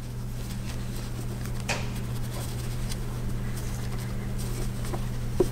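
Faint rustling and light ticks of fabric appliqué pieces being handled and pinned onto a background square, over a steady low electrical hum.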